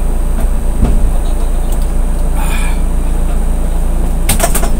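A van's engine idling, a steady low hum heard from inside the cabin, while a man drinks from a plastic water bottle; a short cluster of sharp crackles comes near the end.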